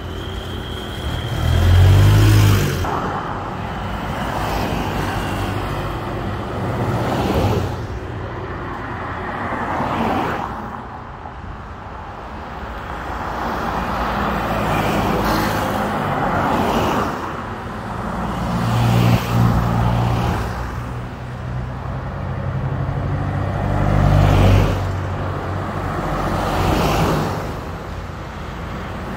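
A convoy of four-wheel-drive SUVs and pickup trucks driving past one after another, each engine and tyre noise swelling as it approaches and fading as it goes. There are about seven pass-bys, the loudest about two seconds in and again near the end.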